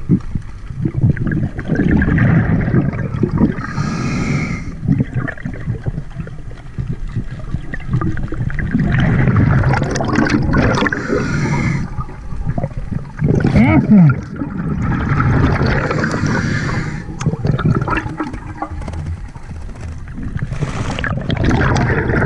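Underwater gurgling and bubbling heard through a camera housing, coming in surges every few seconds like a diver's exhaled breath bubbles, with a brief rising squeak about halfway through.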